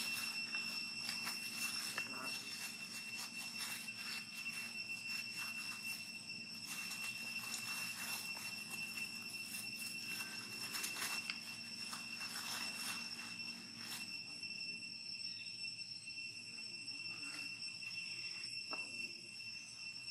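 Dry leaf litter rustling and crackling as macaques shift about and handle twigs, the crackles thinning out about two-thirds of the way through. Under it runs a steady high-pitched insect drone.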